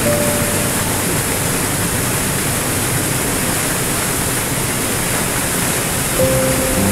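Small waterfall rushing steadily over rocks into a churning pool. A faint piano note sounds at the start, and piano returns near the end.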